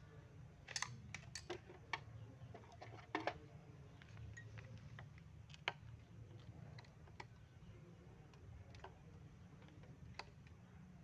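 Light clicks and taps of hands handling the parts of a small chainsaw stripped down with its carburetor removed: a cluster of sharp clicks in the first three and a half seconds, then fewer and fainter ones.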